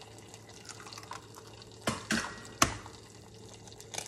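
Eggs being cracked one-handed into a saucepan of melted butter: a few sharp cracks and taps of eggshell, the loudest a little over halfway through and one more near the end, with the egg dropping into the pan.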